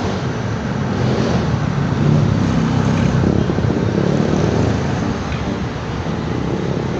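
Hot oil sizzling steadily as chicken risoles deep-fry in a wok, under a low rumble of passing street traffic.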